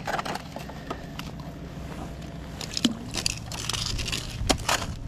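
Handling noise of an ice angler working at the hole: rustling and scraping of clothing and gear with scattered small clicks, over a steady low rumble. The rustling comes in two louder patches, about halfway through and near the end.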